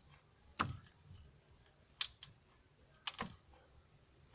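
Slime being squeezed and stretched by hand, giving a handful of short, sharp clicking pops spaced irregularly.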